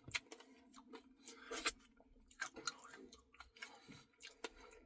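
Close-up chewing of a Reese's Pieces cookie dough Blizzard: faint, irregular crunches and mouth clicks, with a louder cluster of crunching about a second and a half in.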